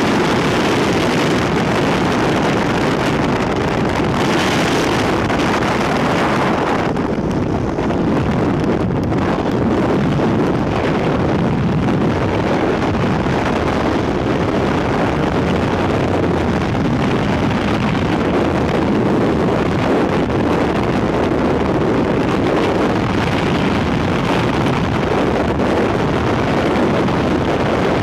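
Loud, steady rush of freefall wind buffeting the microphone of a skydiving camera. In the first several seconds the hiss is brighter, with the jump plane's engine and slipstream at the open door, before it settles into a duller, even roar of wind.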